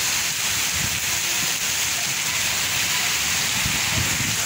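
Heavy rain falling on rooftops and a paved street, a steady, even hiss.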